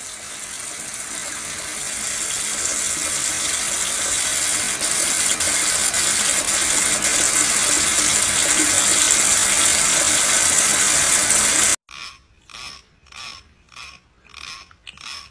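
Kitchen tap running steadily into a steel sink. About twelve seconds in it stops suddenly, followed by a quick series of short scraping strokes, about two or three a second, from a comb being worked.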